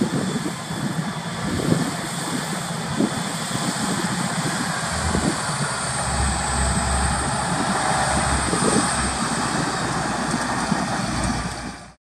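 Massey Ferguson 7720 tractor's six-cylinder diesel engine running steadily under load while pulling a plough through the soil, with a deeper rumble and a little louder from about five seconds in as the tractor draws close.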